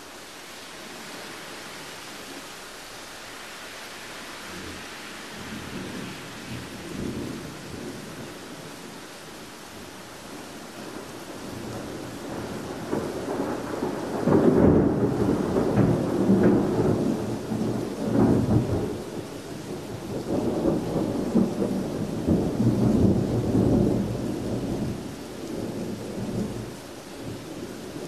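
Thunder rolling: a soft rumble in the first seconds, then a long rolling peal from about twelve seconds in that is loudest through the middle and eases off near the end, over a steady hiss.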